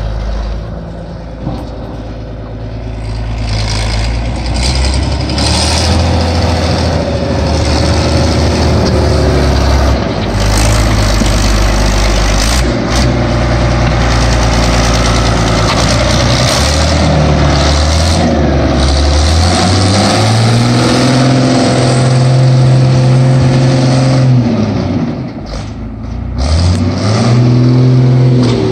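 Mid-1980s Fiat DT tractor's diesel engine working under load while plowing snow, with a loud exhaust note. The revs climb and fall several times, with a long high-revving stretch in the second half.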